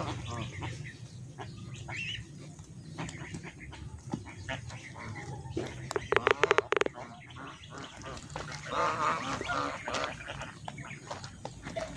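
White domestic geese honking on and off as they forage. The loudest moment is a short, rapid run of sharp calls about six seconds in.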